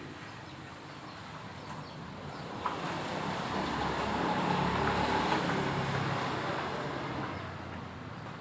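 A motor vehicle passing by: its engine rumble swells to a peak about five seconds in, then fades.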